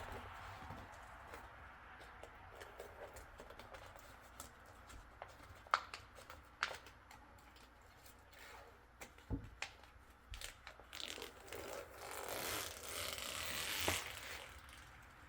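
Masking tape and paper backing being peeled off and handled, with light crinkling and scattered sharp clicks. A louder, hissy peeling stretch comes about eleven seconds in.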